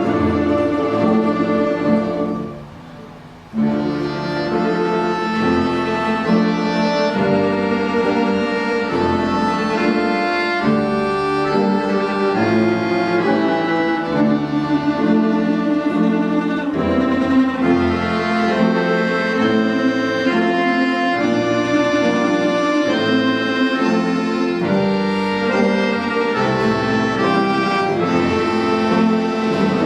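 An ensemble of Russian folk instruments playing a round-dance tune, with a reedy accordion-type sound prominent among the held notes. The music briefly falls away about two and a half seconds in, then comes back in full.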